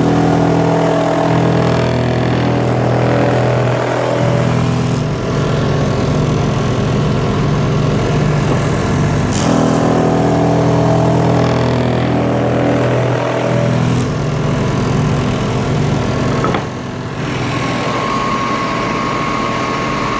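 Electric motor of a handmade drum sander running steadily, its hum shifting in pitch a few times. The sound drops briefly about three-quarters of the way through, and a steady higher tone then joins in.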